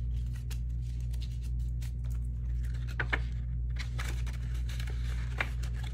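Light rustling and a few short clicks from handling paper bills and cash envelopes, over a steady low hum.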